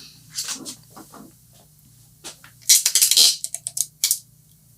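Small clicks and a short burst of crisp clatter from tools and wires being handled on a soldering workbench, over a low steady hum.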